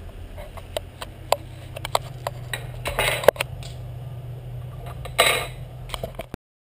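Kitchen handling sounds: a pot's glass lid and objects knocking and clinking on a stone worktop, a dozen or so sharp clicks with two louder rushes of noise, over a steady low hum. The sound cuts off suddenly near the end.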